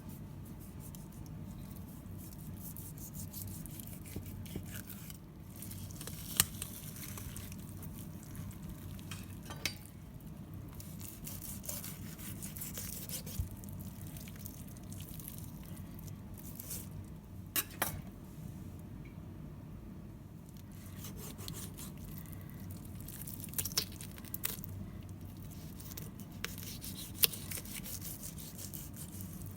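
Knife cutting through a raw whole chicken on a cutting board: soft wet cutting and handling, with a few sharp clicks of the blade or bones at irregular moments, over a steady low hum.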